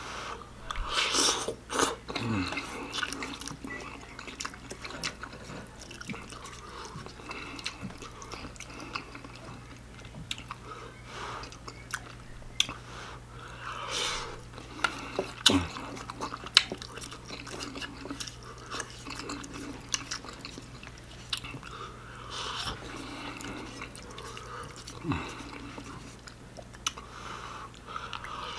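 Close-miked chewing and slurping of ramen noodles, with many wet mouth clicks and smacks and a few louder slurps. A few times there is a short, falling hum from the voice, over a steady low electrical hum.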